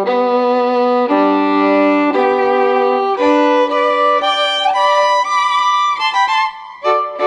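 Violin music: a slow melody of long held notes, each lasting about a second, with a sliding note a little past the middle.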